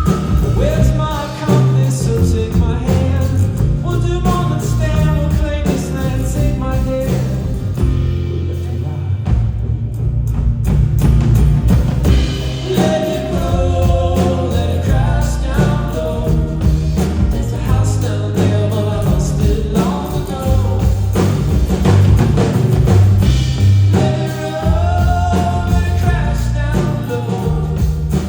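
Live indie rock band music: a melody carried over a steady bass line and drums.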